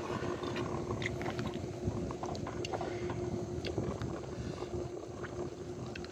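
Eating with chopsticks from a ceramic bowl: small scattered clicks of the chopsticks against the bowl, with chewing, over a steady low hum.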